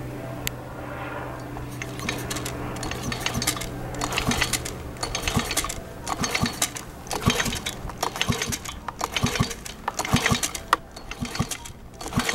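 Irregular clicking, knocking and scraping of a hand tool and plastic parts being worked at the fuel tank filler of a two-stroke leaf blower. The clicks grow denser and sharper after the first few seconds.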